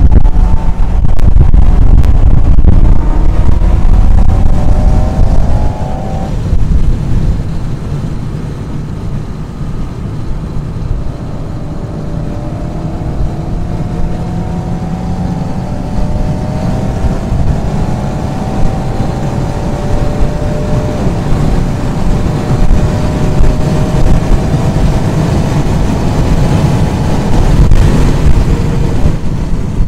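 Alpine A110's turbocharged 1.8-litre four-cylinder engine heard from inside the cabin, accelerating hard up through the gears. Its note climbs steadily in each gear and resets lower at each upshift, with road and tyre rumble underneath, louder in the first few seconds.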